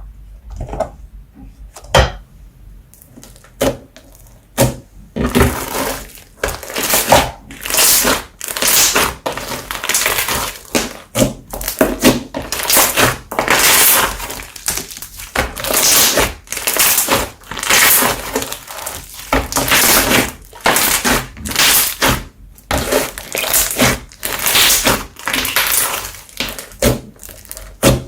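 Slime being squeezed and pressed by hand, giving bursts of dense crackling pops about once a second from about five seconds in, after a quieter stretch with a few single clicks.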